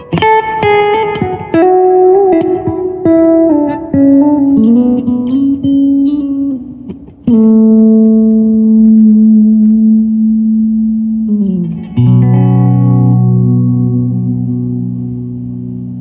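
Ibanez Prestige S5470F electric guitar played through an amplifier: a run of quick single notes, then a long held note about seven seconds in. The pitch slides down, and a lower note rings out and slowly fades near the end.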